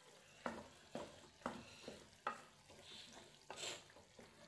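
Wooden spoon stirring minced meat in an aluminium pan, knocking against the pan about five times at roughly half-second intervals in the first half, with a faint sizzle of the meat frying.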